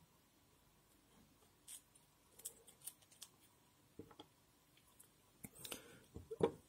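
Faint, scattered small clicks and light scraping as walnut shell and kernel pieces are handled by hand, a little busier near the end.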